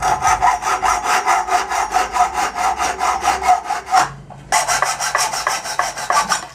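Hacksaw cutting through the metal pipe of a bicycle hand pump in quick, even back-and-forth strokes. It pauses briefly about four seconds in, then saws again.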